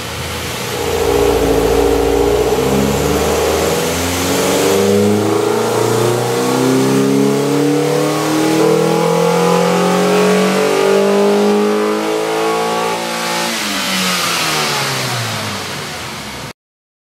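Ninth-generation Honda Accord engine accelerating under load, its pitch rising steadily for about ten seconds, then falling quickly as the throttle is released near the end.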